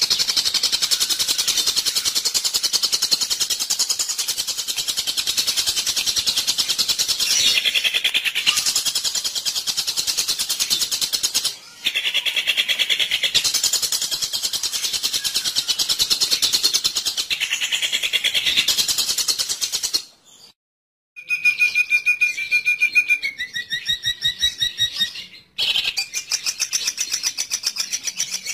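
Long-tailed shrike (cendet) lure call recording: dense, harsh, rapid chattering, broken by abrupt gaps where the track cuts. About two-thirds of the way through comes a stretch of clearer, steadier high squeaky notes that step down in pitch.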